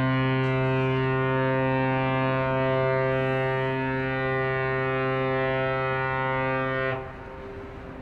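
A container ship's whistle sounding one long blast, a deep steady horn tone that holds for about seven seconds and then cuts off sharply.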